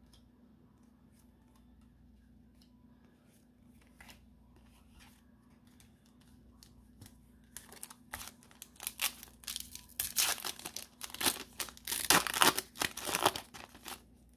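Foil wrapper of a Pokémon card booster pack crinkling and tearing as it is ripped open by hand. The crackling starts about halfway through and is loudest over the last few seconds, after faint clicks of card handling.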